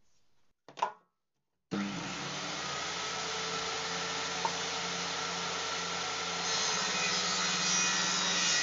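Table saw running steadily, with a hum and a whine, its blade cutting a groove into the edge of a wooden board as the board is pushed through. The sound gets louder and harsher about two seconds before the end. Before the saw starts there is one brief knock.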